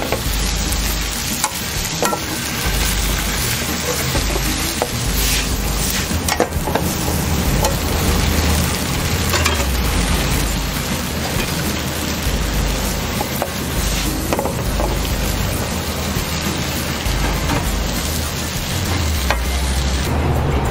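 Squid and garlic chive flowers sizzling in a hot pan as they are stir-fried. A metal ladle scrapes and clinks against the pan now and then.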